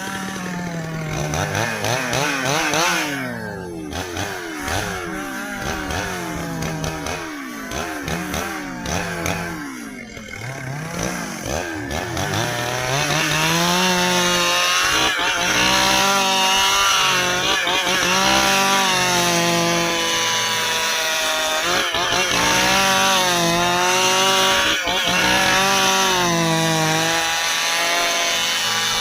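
Stihl two-stroke chainsaw cutting dry ipê hardwood. For the first twelve seconds or so the engine revs up and down. It then holds at high speed under load for the rest of the cut, its pitch wavering slightly as it works through the log.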